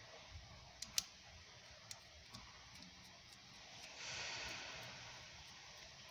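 Faint metallic clicks and taps of fingers working a nut at the base of a Solex 30 PIC carburetor, the sharpest about a second in, then a brief soft rustle around four seconds in.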